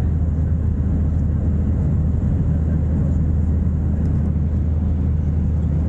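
Airliner cabin noise in flight: the steady roar of the jet engines and rushing air, heavy in the low end with a constant low hum, during the climb just after takeoff.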